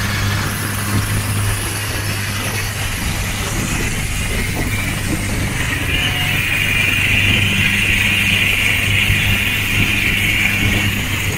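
Small motorboat's engine running steadily at speed, a constant low drone, under the rush of water and spray along the hull; the hiss grows louder about halfway through.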